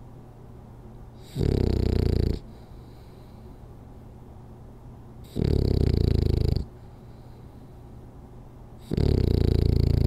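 French Bulldog snoring in its sleep: three snores, each about a second long, coming roughly every three and a half seconds.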